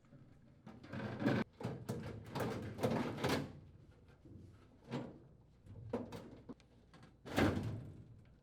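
Sheet-metal blower assembly of a furnace being slid along its mounting rails into the cabinet: irregular scraping and clunking of metal on metal, heaviest over the first few seconds, with a few shorter bursts and knocks later.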